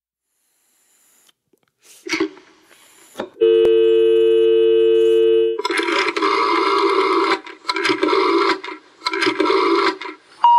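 Telephone sound effect: a few handset clicks, then a steady dial tone for about two seconds. It is followed by several rough buzzing bursts about a second long with short gaps. A rising tone begins right at the end.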